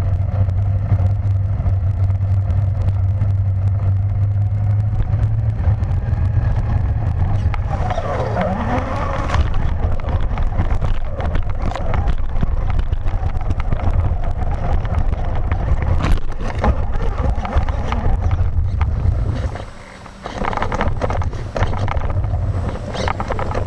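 Traxxas Slash VXL RC truck, heard from a camera mounted on its own chassis: brushless motor and drivetrain whining over the rumble and rattle of the tyres on pavement and mulch, with a few knocks as it bumps along. It stops briefly near the end, then drives on.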